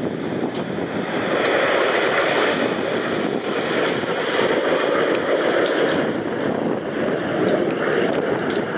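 Jet engines of a formation of nine aerobatic jets flying past overhead: a steady rushing jet noise that swells about a second in and holds.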